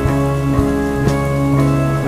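Slow music with sustained chords and a soft drum hit about once a second, mixed over steady rainfall.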